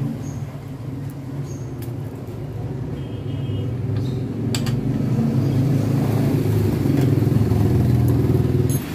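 A motor-vehicle engine running steadily with a low hum, growing louder about halfway through and dropping off sharply just before the end. A few light clicks come from the motorcycle's fuel pump assembly being handled.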